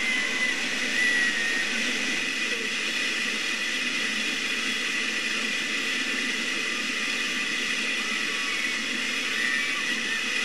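Whitewater river rapids rushing steadily, the continuous hiss of water churning over rocks.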